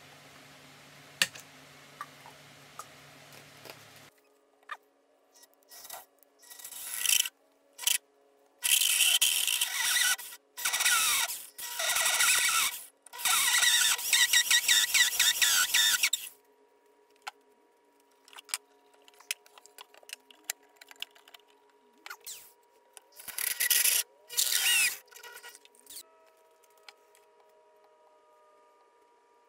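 Drill-driven bimetal hole saw cutting through a walnut slab in several stop-start bursts of a few seconds each, a loud rasping of teeth in the wood. Two more short bursts come later, with quiet ticks and a faint hum between.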